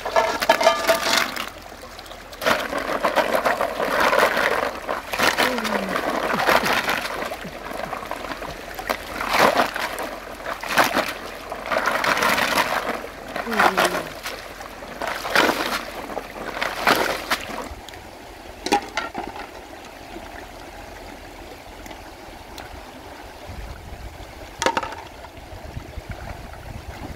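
Water splashing in repeated bursts as water is poured over snails in a wicker basket and the basket is rinsed in a shallow stream. After about two-thirds of the way through, only the steady rush of the stream is left, with a couple of sharp clicks.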